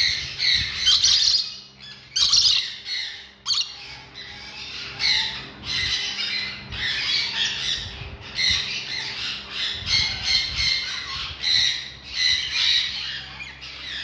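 Lories giving harsh, squawking calls over and over in quick succession, one after another with only brief gaps.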